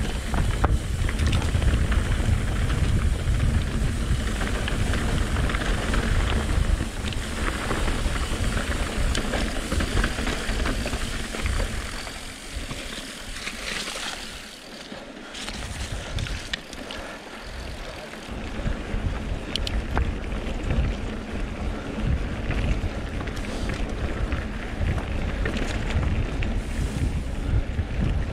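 Wind buffeting the microphone of a bike-mounted or helmet camera while riding a mountain bike on a dirt trail, with tyres crunching over dirt and rock and the bike rattling in quick clicks. It eases for a few seconds about halfway through, then picks up again.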